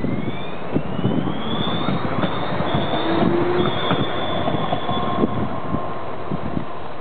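Pesa Swing low-floor tram accelerating away from a stop, its traction drive whining and rising steadily in pitch over the first couple of seconds, with a steady high whine after. Underneath, the wheels rumble on the rails with many short knocks.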